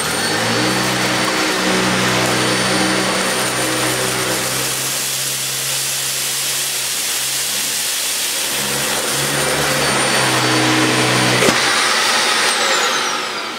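Dyson Ball Animal 2 upright vacuum cleaner running on its max setting, a steady high whine over a rush of suction, as it is pushed over rice on carpet. About eleven seconds in it is switched off and the whine glides down as the motor winds down.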